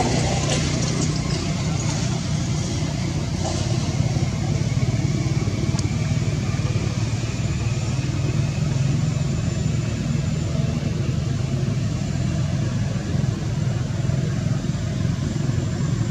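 Steady low hum of an engine running, even in loudness throughout.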